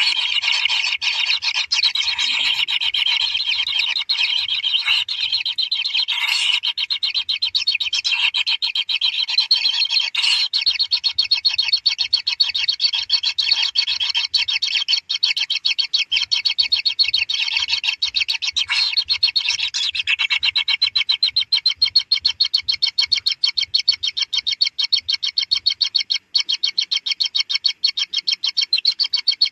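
Kingfisher nestlings begging: a continuous, rapid, high-pitched churring chorus from the chicks in the nest.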